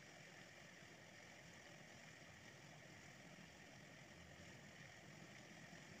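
Near silence: a faint, steady hiss with a low rumble underneath, unchanging throughout.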